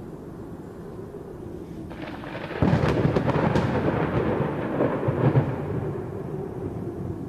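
Thunderclap over steady wind: a sudden crackling crack about two and a half seconds in, which rolls on and fades over the next few seconds.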